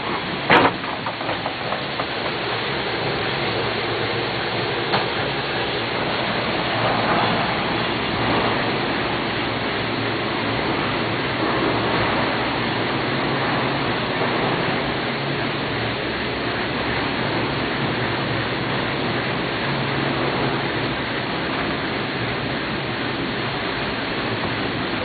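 Steady rolling rumble and rush of a 1987 Leitner six-seat gondola cabin travelling along its cable, heard from inside the cabin, with a sharp click about half a second in.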